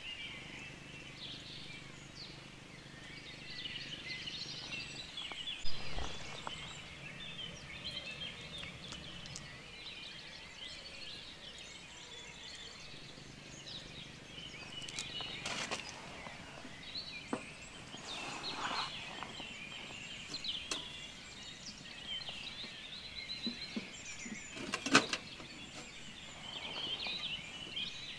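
Small birds chirping and twittering continuously, with a few sharp knocks, the loudest about six seconds in and near the end.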